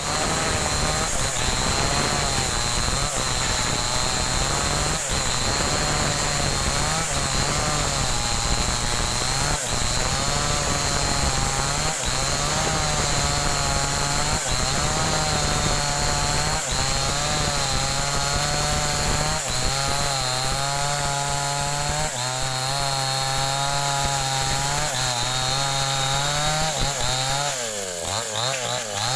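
Rooster-brand ('cap ayam') two-stroke chainsaw running unevenly, its engine pitch wavering up and down. It is sputtering ('mbrebet'), the sign of an engine that isn't running cleanly.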